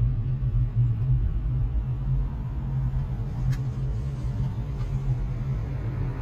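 Steady low rumble of engine and road noise inside a slowly moving car's cabin, with a faint click about three and a half seconds in.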